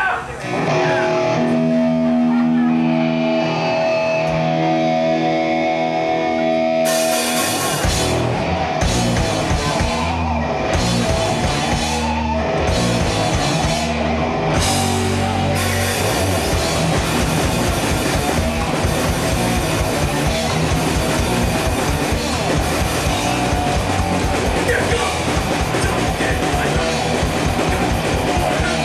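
Live heavy metal band with electric guitars, bass and drum kit. Guitar holds sustained notes for the first several seconds. The drums and full band crash in about seven seconds in, playing stop-start hits, then settle into continuous playing from about fifteen seconds.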